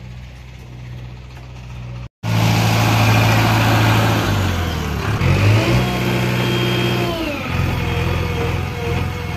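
JCB 3DX backhoe loader's diesel engine running loud, revving up and back down about halfway through as the machine is worked, with a high whine while the revs are up. Before that, a quieter steady engine hum that cuts off abruptly about two seconds in.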